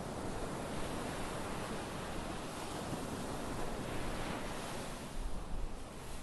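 Small ocean waves breaking and washing up a sandy beach, a steady rush of surf.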